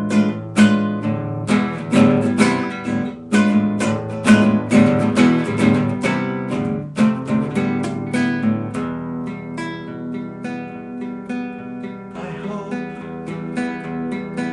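Acoustic guitar strummed and picked in an instrumental passage between sung lines of a song, with no voice. The playing thins out and grows softer about nine seconds in.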